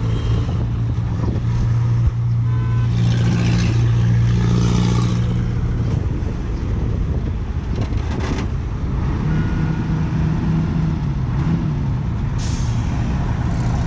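Diesel dump truck engines running hard as one truck pulls a stuck, loaded dump truck out of soft ground on a tow cable. The engine note wavers in pitch for a few seconds near the end, and several short bursts of hissing break in, the loudest about three to five seconds in.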